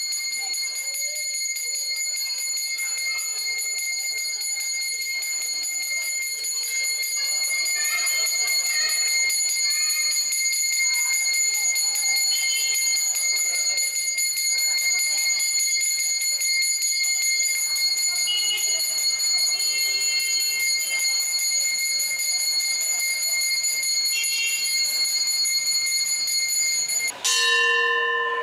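Temple bells ringing continuously for aarti worship in a high, unbroken ring, with faint voices underneath. About a second before the end, a deeper-toned bell starts being struck.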